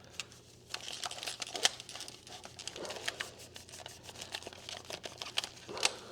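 Scratchy rubbing and scrubbing on a PS5 DualSense controller's plastic shell as it is cleaned with alcohol. The rubbing starts about a second in and goes on irregularly, full of small ticks, with a couple of sharper clicks.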